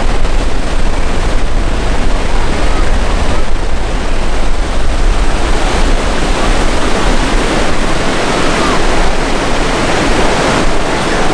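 A-10 Thunderbolt II's twin turbofan engines passing overhead: loud, steady rushing jet noise.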